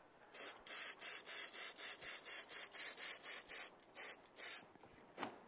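Aerosol spray-paint can hissing in a quick run of short bursts, about three a second, as paint is dabbed onto the fabric through a stencil.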